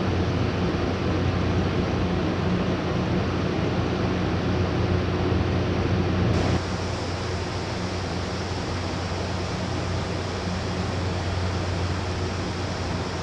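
Window-type air conditioner running with a steady hum and fan noise while its refrigerant charge is being topped up; the low charge had caused its evaporator to ice up. About halfway through, the sound abruptly drops a little and changes.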